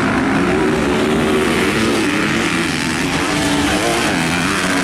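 Motocross dirt bikes racing, several engines revving and wavering in pitch as the riders accelerate and back off through the turns.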